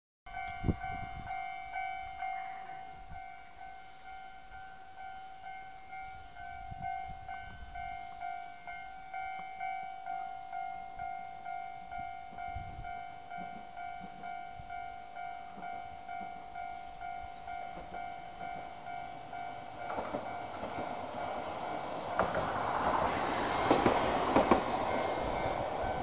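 Japanese level-crossing warning bell ringing, a steady rhythmic ding. About 20 seconds in, the rolling noise of a Hankai Tramway 601-type tram swells as it approaches on the rails, with a few sharp knocks near the end as it reaches the crossing.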